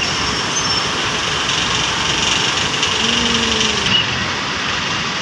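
Steady roadside vehicle noise, engines and tyres running, with a faint short tone about three seconds in.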